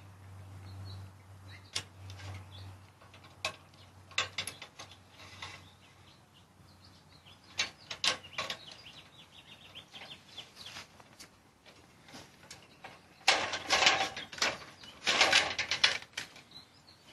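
Metal clicking and rattling of a ladder guard attachment being worked at the foot of an aluminium extension ladder: scattered single clicks, then two louder bursts of rapid ratchet-like rattling near the end.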